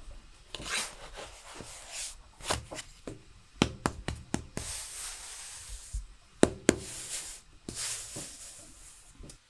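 Thin wooden rolling pin rolling out flatbread dough on a tabletop: repeated rubbing strokes, with several sharp wooden knocks in the middle as the pin strikes the table.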